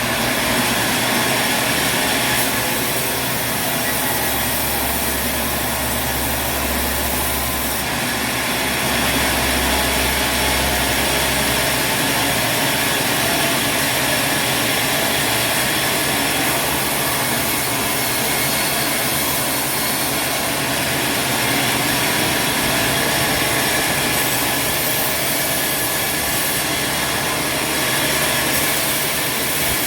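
Sawmill saw running and cutting through wood, a steady loud mechanical noise, with a deep low hum under it for about the first twelve seconds.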